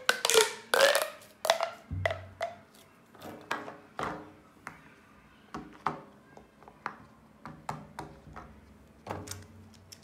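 Plastic pop tube fidget toy being stretched and squashed, its ribs snapping open and shut with a quick string of pops and croaky, burp-like clicks. The pops are loudest in the first second or so, then thin out into fainter, irregular clicks.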